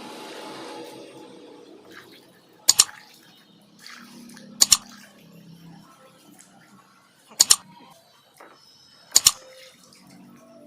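Four sharp double knocks, each two quick strikes, spaced about two seconds apart. They come from work on a car's front suspension, and a soft hiss fades out at the start.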